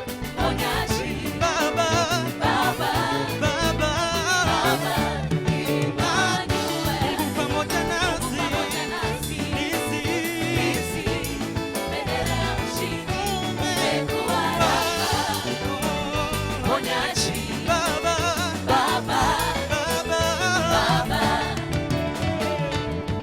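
Gospel worship band performing a song: sung vocals with vibrato over the band's instruments and a steady beat.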